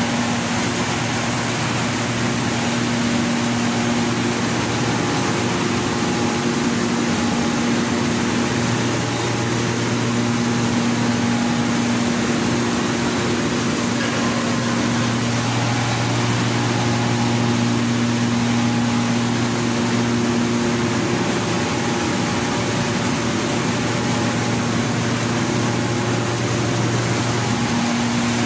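Corn mill machinery running: motors and sifters give a loud, steady drone with a low hum.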